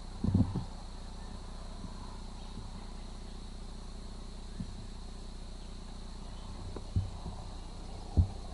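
Steady high trilling of crickets in the background, broken by a few short, dull low thumps about half a second in and again near the end.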